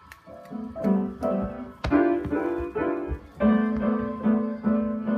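Piano music: a rhythmic run of struck notes and chords.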